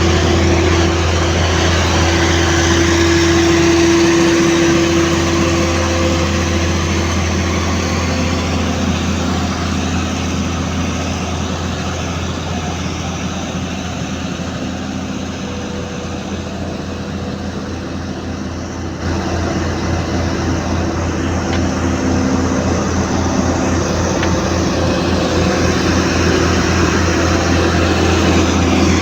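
A heavy construction machine's engine running steadily with a deep, even hum. About two-thirds of the way through, the sound changes abruptly and gets louder.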